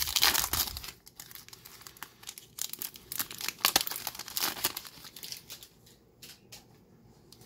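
A Magic: The Gathering set booster pack's foil wrapper torn open and crinkled, loudest in the first second, then bursts of crinkling that die down to a few light clicks near the end.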